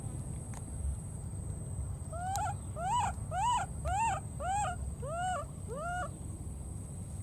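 A baby monkey crying out in a string of about seven short, pitched calls, each rising then falling, about two a second; these are the calls of a young monkey looking for its companion.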